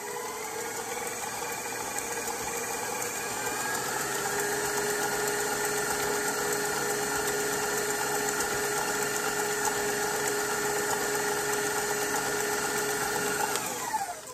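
Electric stand mixer beating wet cookie dough in a stainless steel bowl: a steady motor whine with the paddle churning. It rises in pitch over the first few seconds as it speeds up, holds steady, then winds down near the end as it is switched off.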